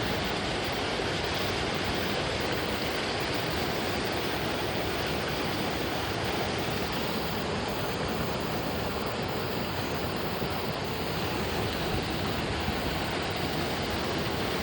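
Steady rushing of running water, an even hiss with no breaks or single events.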